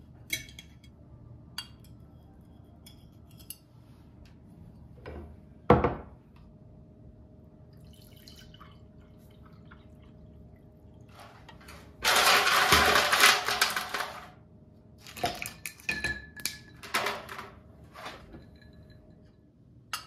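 Fork and ceramic plates clinking and tapping on a wooden table, with one loud knock about six seconds in. Later, orange juice pours from a pitcher into a glass for about two seconds, followed by more clinks of glass and plates.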